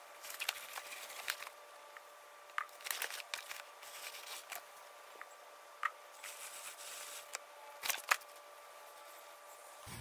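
Paper towel rustling and scattered light clicks and taps as gear oil is worked onto a motorcycle drive chain, over a faint steady hum.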